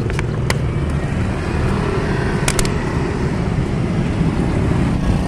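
Road traffic of cars and motorcycles passing in a steady rumble, with a few short clicks near the start and about two and a half seconds in.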